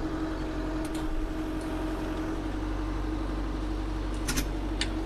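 Branson 5220C compact tractor's diesel engine running steadily, with a constant hum, while the front-loader grapple lifts a stump. A few sharp clicks come near the end.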